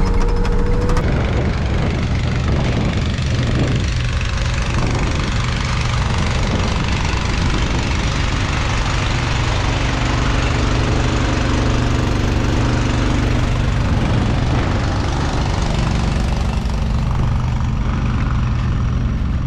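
An engine running steadily at a constant speed, with a low, even hum under a dense mechanical noise.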